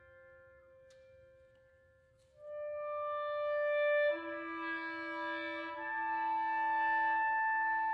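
Amplified electric clarinet playing long held notes that pile up through electronic delay and pitch transposition into a sustained chord. It is soft for the first couple of seconds. New notes enter about two and a half seconds in and again at about four seconds, and the chord then holds.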